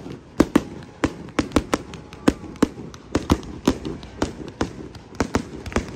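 Fireworks going off: an irregular string of sharp cracks and pops, about three a second.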